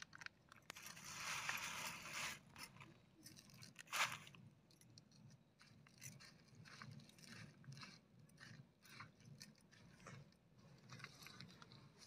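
Faint crunching and scraping of a crushed crunchy snack being crumbled into cooked rice in a plastic bowl and worked together by hand, with a louder crinkly rustle about a second in and a single sharp click at about four seconds.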